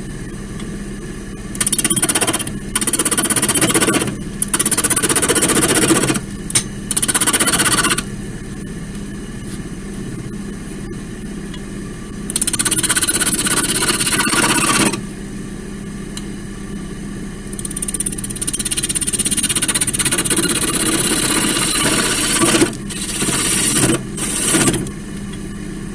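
Wood lathe running steadily with a constant hum, while a roughing gouge cuts into a spinning laurel log in repeated passes, the cutting noise coming in spells of one to five seconds as the domed top of a mushroom is roughed out.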